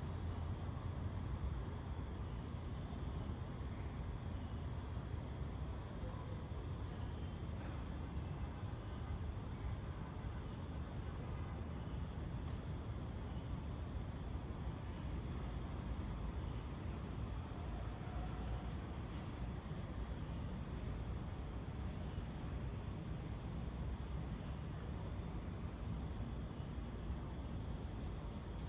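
A cricket trilling steadily in a high, fast-pulsing tone that breaks off briefly near the end, over a constant low background rumble.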